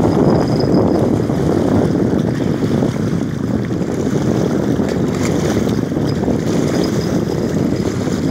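Wind buffeting the phone's microphone, a steady loud rumble throughout.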